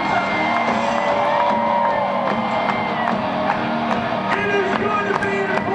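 Live glam-metal band playing loud through a stadium sound system, the singer holding long sung notes that bend in pitch over the band.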